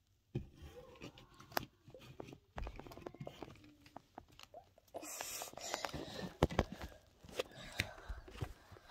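Phone handling noise: a string of sharp knocks and taps, with a stretch of rustling about halfway through as the phone is moved and brushes against clothing.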